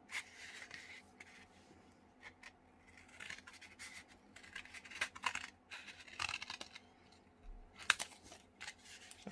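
Scissors cutting through a flattened cardboard tube: a series of short, irregular snips, the loudest about eight seconds in.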